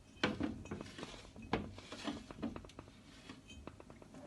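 Kitchenware being handled: a run of irregular clicks and light knocks.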